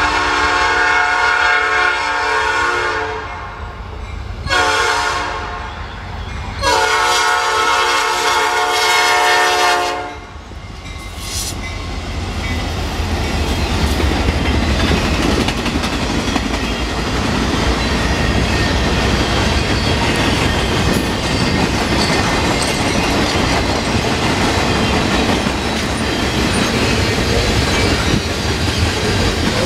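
Diesel freight locomotive's five-chime P5 air horn sounding a long blast, a shorter blast and another long blast, the pattern of a grade-crossing warning. Then an EMD SD70 and a GE C44-9W pass close by with their diesel engines running, followed by the steady rumble and clickety-clack of freight car wheels on the rails.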